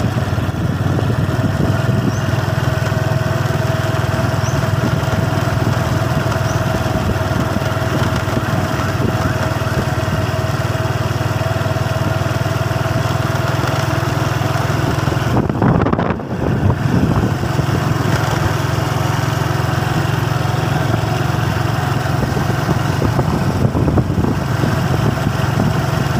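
Motorcycle engine running steadily while riding along, with a brief dip in the sound about two-thirds of the way through.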